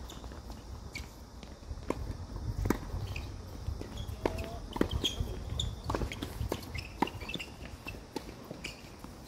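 Tennis doubles play: sharp pops of rackets striking the ball and the ball bouncing, at an irregular pace, with footsteps on the court.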